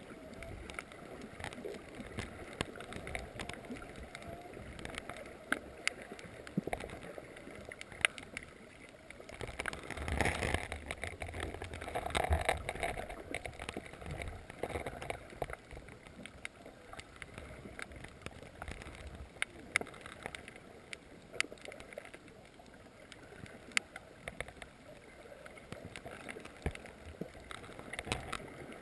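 Underwater reef ambience heard through a waterproof camera housing: a low wash of moving water dotted with scattered sharp clicks and crackles, swelling louder for a few seconds around ten to thirteen seconds in.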